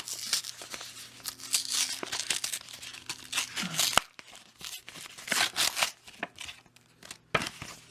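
Foil Yu-Gi-Oh! trading-card booster packs being torn open and their wrappers crinkled: a run of irregular tearing and rustling bursts, with one sharp snap about four seconds in.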